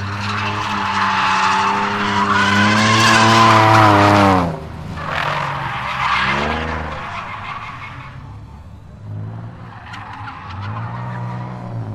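Nissan 350Z's V6 engine held at high revs with tyre squeal as the car drifts, for about four seconds, before the revs drop sharply. The engine blips and falls again a couple of seconds later, then climbs back up near the end.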